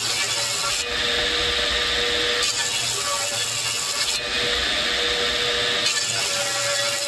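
Table saw ripping curly maple boards: the blade cutting through the wood alternates with the blade spinning freely between passes, with a steady motor tone. The cycle repeats about every two seconds, giving roughly three cuts.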